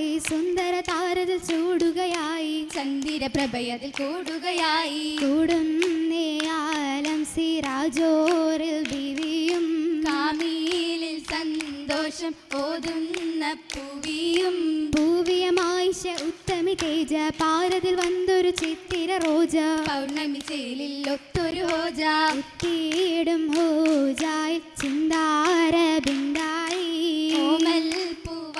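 Female voices singing a Mappila song for an Oppana dance, with rhythmic hand claps.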